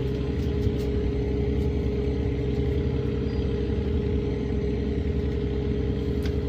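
A steady, unchanging low motor drone with a constant hum, like an idling engine, and a few faint high clicks.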